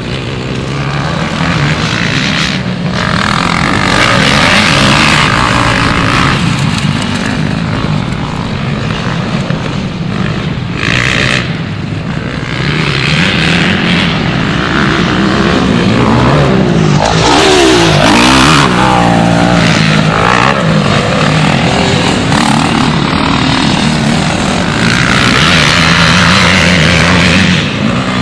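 Motocross bike engines running and revving on a dirt track, their pitch rising and falling as the riders open and close the throttle, with a strong sweep up and back down about two-thirds of the way through.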